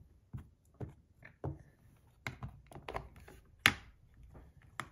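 A string of light clicks, taps and knocks as a pocket digital scale is set down and opened on a cork-lined tray and its buttons are pressed, while small metal spinner parts are moved about; the sharpest click comes a little before four seconds in.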